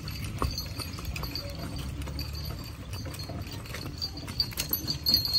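Horse's hooves clip-clopping on a dirt track as it pulls a cart, over a steady low rumble of the moving cart. The hoof clicks grow louder near the end.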